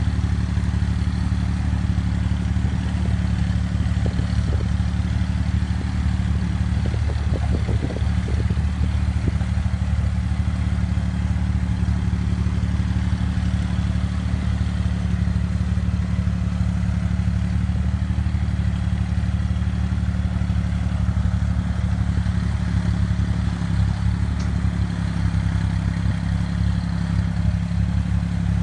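A 60-horsepower farm tractor's diesel engine running steadily under load as it drags a rear grading blade through loose soil. There is a brief rattle about seven to nine seconds in.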